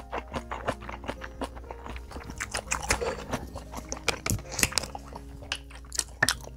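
Close-miked chewing of a mouthful of food: quick, irregular wet clicks and smacks. In the second half a plastic water bottle crackles as it is handled and its cap twisted.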